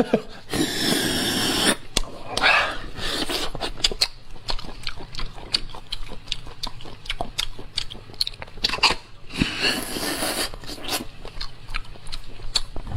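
A person sucking and slurping marrow out of lamb leg bones, with wet chewing and many sharp lip-smacking clicks. A long, loud slurp comes about half a second in, with shorter ones near two and a half seconds and near ten seconds.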